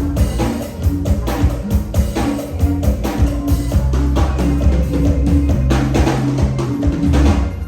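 Music with a drum-kit beat, about two hits a second, over a deep bass line.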